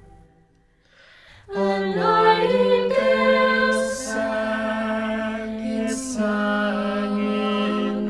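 Five-voice a cappella quintet (soprano, two altos, tenor and bass) singing close-harmony chords. A held chord ends, there is a pause of about a second and a half, then the voices come back in together and hold sustained chords that shift several times.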